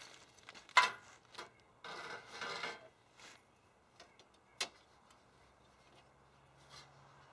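Handling of parts and tools during garage work: a sharp clack about a second in, then about a second of scraping and rubbing, with scattered light clicks and knocks.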